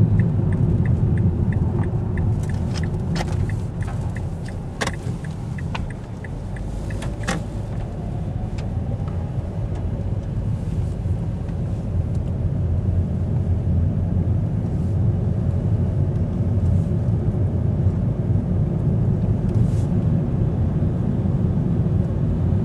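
Steady low road rumble of a car driving, heard from inside the cabin. During the first eight seconds or so there is a faint regular ticking and a few sharp clicks.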